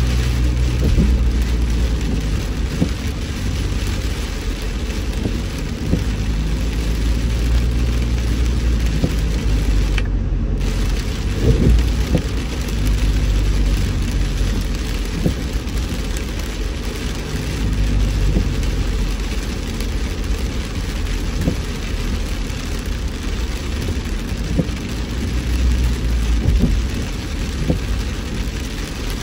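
Rain hitting a moving car, over the steady low rumble of the car and its tyres on the wet road.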